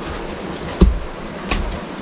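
Steady rain hiss with a few sharp, heavy drips knocking close by, one a little under a second in and another about halfway through.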